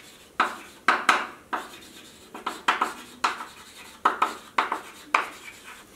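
Chalk writing on a chalkboard: irregular sharp taps and scratches of the chalk stick against the board, about two a second, as letters are written.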